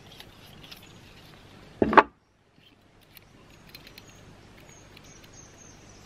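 A gas canister stove being taken apart: one short loud knock about two seconds in, as the fuel canister is set down on the wooden table, then faint small metal clicks as the Kovea burner's legs are folded.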